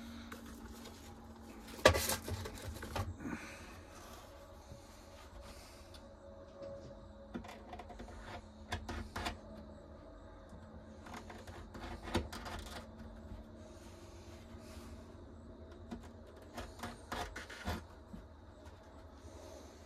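Scattered knocks and clicks of hand tools and a leather sheath being handled on a workbench, the loudest knock about two seconds in.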